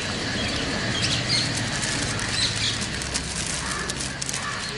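Cellophane wrapping on flower bouquets crinkling and rustling in quick, irregular crackles as the bouquets are handed over.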